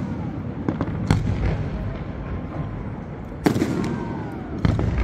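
Fireworks display: aerial shells bursting in a series of sharp bangs over steady rumble and crackle. The loudest bang comes about three and a half seconds in, followed by a faint falling whistle.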